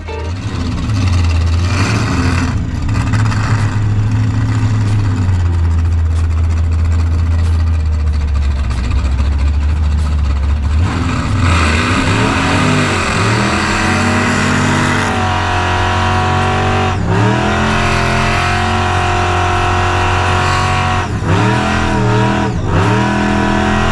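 Supercharged Holden 308 V8 with a 4-71 blower, running at a steady idle for about the first half, then revved up and down several times.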